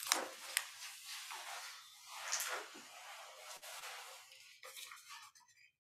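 Pages of a well-worn book being leafed through by hand: a run of soft paper rustles and sharp page flicks that thin out and stop near the end.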